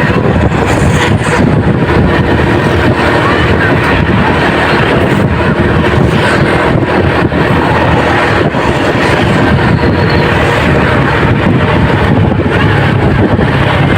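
Steady road-traffic and engine noise, with wind buffeting the microphone.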